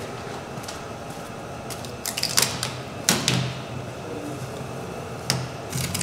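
A scatter of light, sharp clicks and taps from small hardware being handled and pressed into place as a hood badge is fitted to the truck's hood. The clicks come in small clusters about two, three, five and six seconds in, over a faint steady hum.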